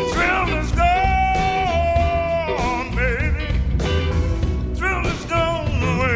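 Background music: a blues-rock song with a singer holding a long note over guitar and a steady drum beat.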